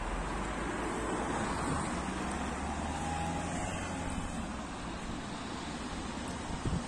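Road vehicle noise: a car's engine and tyres running steadily, with a low hum. A couple of light knocks near the end.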